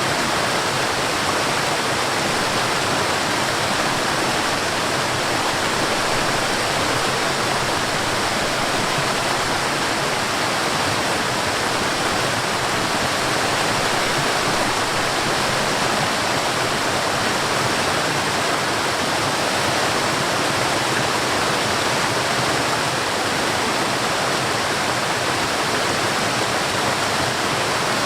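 Forest waterfall: water falling and rushing in a steady, unbroken roar of white noise.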